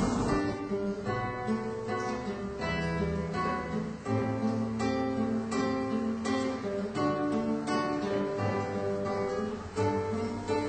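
Acoustic guitar playing a steady run of plucked notes and strummed chords.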